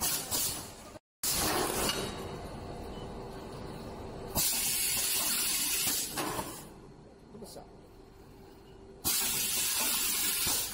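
Rotary cup-sealing machine running, with two long hisses of compressed air from its pneumatic sealing cylinders venting, each lasting about a second and a half, over the machine's steady running noise. The sound drops out completely for a moment about a second in.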